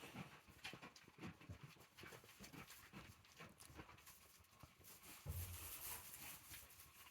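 Faint goat sounds: soft rustling, small knocks and movement. About five seconds in comes a louder low bump with a hiss that lasts about a second.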